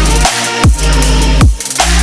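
Electronic dance music with a heavy bass, punchy drum hits and falling pitch sweeps.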